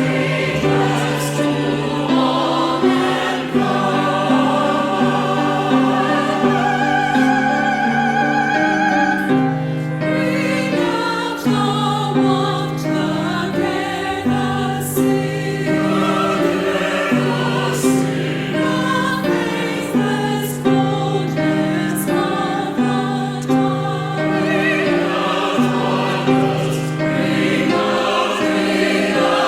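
Church chancel choir singing in parts, with a held high note wavering in vibrato about seven seconds in.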